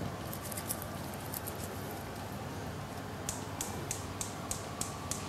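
A run of light, evenly spaced clicks, about three a second, starting a little past halfway, after a few fainter scattered ticks, over a low steady hum.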